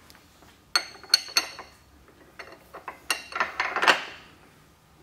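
Steel tools clinking and knocking against a steel fixture table as they are handled: three sharp, ringing clinks about a second in, then a quicker run of clinks and rattles near the end.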